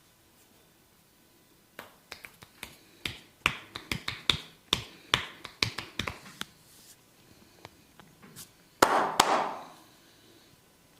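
Barber's hands tapping and slapping on a head during a massage: a quick, irregular run of sharp taps from about two seconds in, then two loud smacks in quick succession near the end with about a second of rough noise after them.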